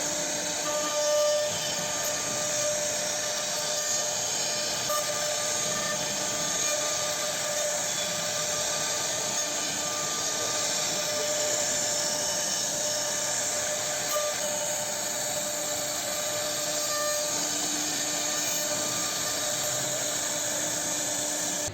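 A CNC router's spindle running steadily as it carves wood: a constant whine over a hiss of cutting.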